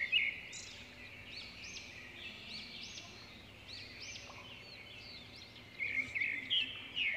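Small birds chirping in the background: a continual run of short, high, arching chirps that grow louder and busier about six seconds in.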